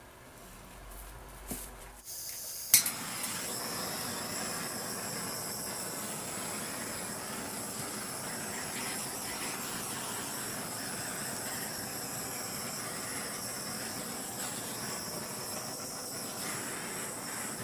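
A small handheld gas torch comes on with a sharp ignition click about three seconds in, then burns with a steady hiss as it is passed over wet acrylic pour paint to bring up cells.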